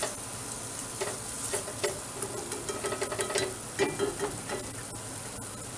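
A whisk stirring a thick butter-and-flour roux in an enamelled cast-iron pot, with light clicks and scrapes of the whisk against the pot, over a faint sizzle of the roux cooking. The whisking thins out after about four seconds.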